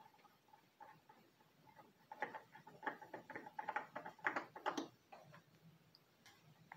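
Spin-on oil filter of a Mercury 40 hp four-stroke outboard being unscrewed by hand through a rag: a run of faint, quick clicks and scrapes that starts about two seconds in and stops near five seconds.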